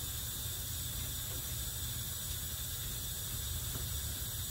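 Steady low hum and hiss of background noise, with a couple of faint light taps from the pump parts being handled.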